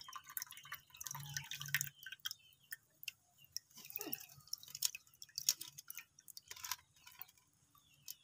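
Small irregular splashes and drips of water as live catfish wriggle in a shallow clay bowl of water, busier in the first two seconds.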